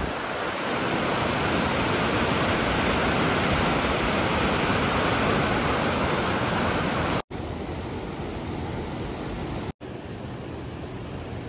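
Waterfall water falling and splashing in a steady, dense rush. It cuts out briefly twice, about seven and ten seconds in, and is quieter after the first break.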